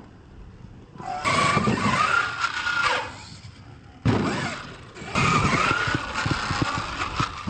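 Radio-controlled monster truck's electric motors whining under throttle in two long bursts, the pitch rising and falling, over the rumble of its tires on dirt; the second burst starts abruptly about four seconds in.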